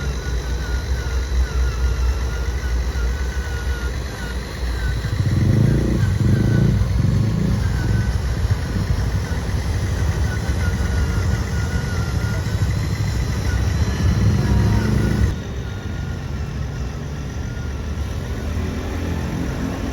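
Radio-controlled construction models running: a steady motor or engine-like rumble that grows louder about five seconds in, then drops suddenly to a quieter level about fifteen seconds in.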